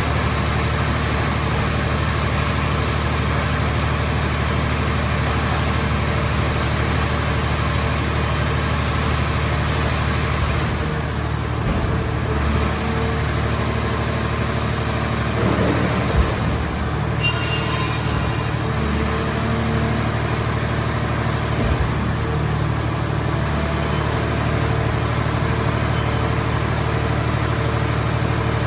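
Portable car-shell scrap baler's power unit running steadily, with a few short knocks partway through.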